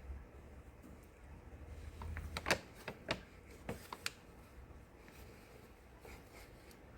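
A quick run of about six sharp clicks and taps in a couple of seconds, from about two seconds in, over a faint low rumble.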